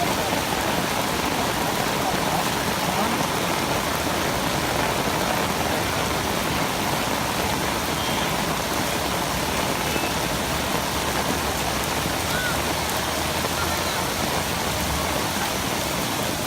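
Steady, even rushing of water, with no breaks or changes.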